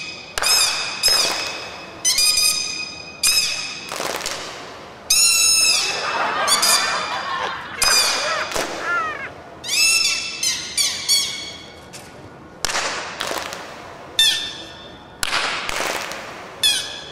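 A string of short, high-pitched comic honks and squeaks, each starting suddenly and echoing away, some bending down in pitch, like a clown's toy voice standing in for speech.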